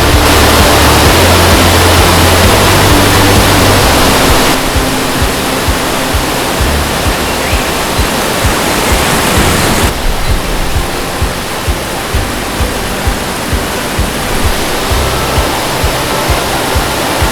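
Waterfall rushing steadily, with background music carrying low bass notes and a steady beat. The rush drops in level twice, about four and a half seconds in and again about ten seconds in.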